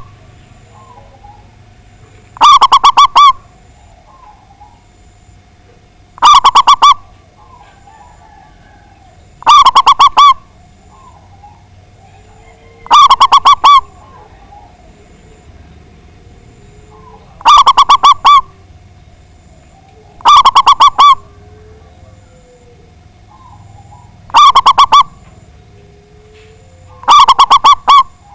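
Zebra dove (perkutut) singing: eight loud phrases of rapid, trilled cooing, one every three to four seconds. Fainter small birds chirp in the gaps.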